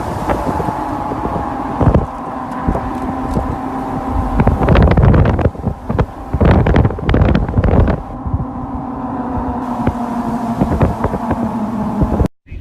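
Steady vehicle hum with road noise. Gusts of wind buffet the microphone with rough thumps from about four to eight seconds in, and the sound cuts off abruptly just before the end.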